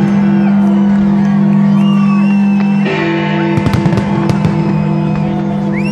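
Loud music with sustained low notes and a pulsing beat, over which fireworks go off in sharp bangs, a cluster of them coming about three and a half to four and a half seconds in.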